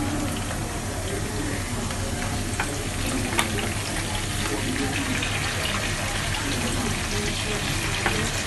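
Beef sizzling in hot palm oil with sliced onions in a frying pan, a steady hiss, with a few light knocks of a wooden spatula as it is stirred.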